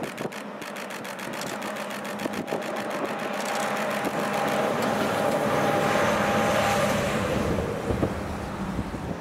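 JNR DE15 diesel-hydraulic locomotive with a Russell snowplow going past at speed, its engine running and plowed snow spraying off the blade. The sound builds, is loudest about five to seven seconds in as it passes, then fades.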